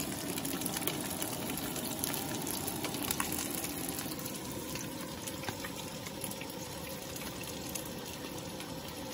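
Breaded sushi rolls frying in hot oil in a frying pan, a steady sizzle with small pops.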